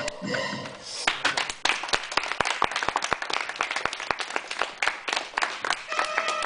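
A small group of people applauding, a dense run of hand claps starting about a second in. Near the end a steady tone of several held pitches starts.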